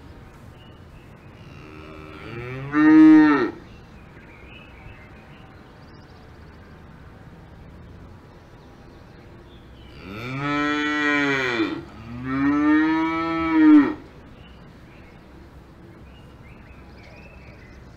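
Cows mooing: one moo about three seconds in, then two long moos back to back near the middle, over a faint steady background hiss.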